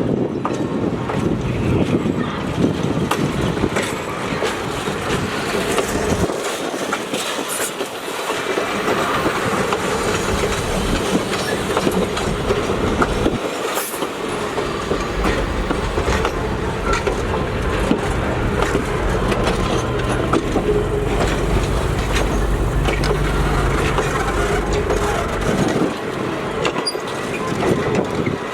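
Passenger train running along the track: a steady rumble with wheels clicking over the rail joints.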